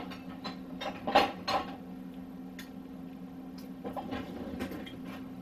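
Kitchen utensils clinking and knocking: a handful of short sharp clicks, the loudest a little over a second in, over a steady low hum.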